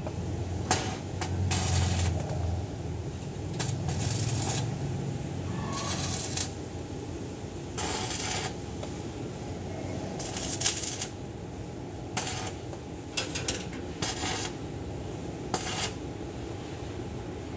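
Electric arc welding on a car exhaust pipe: short runs of crackling and sizzling from the arc, each lasting up to about half a second, starting and stopping again and again over a steady low hum.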